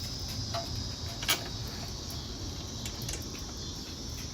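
Crickets chirping steadily in the background, with a few light clicks and one sharper click just over a second in as the brake caliper and its bolts are handled.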